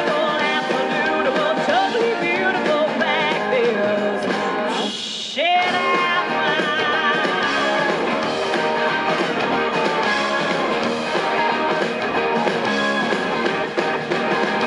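A live rock-country band playing with a female lead singer, heard from the audience. The sound drops briefly about five seconds in, then a rising slide brings the band back in.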